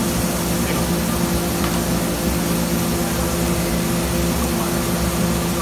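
Steady mechanical drone of restaurant ventilation fans, with a constant low hum under an even rushing noise.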